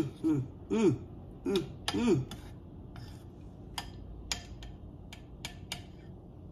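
A metal spoon stirring cream of wheat in a ceramic bowl, clicking against the bowl's side several times. There are a few short wordless vocal sounds in the first two seconds.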